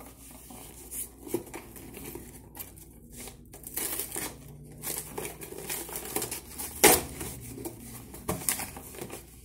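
Cardboard shipping box being opened by hand: packing tape tearing and cardboard flaps crinkling and rustling in irregular bursts, with one sharp, loud crackle about two-thirds of the way through.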